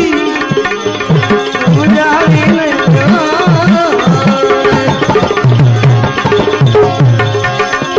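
Instrumental interlude of a Gujarati devotional bhajan. Tabla strokes run throughout, the low bass-drum strokes bending in pitch. Under them are sustained tones, and a wavering melody line comes in about two to three and a half seconds in.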